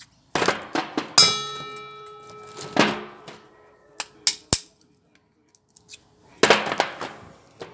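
Metal knocks and clanks as steel parts of microwave fan motors are worked and handled. About a second in, one loud clang rings on for over a second, and a few more knocks follow.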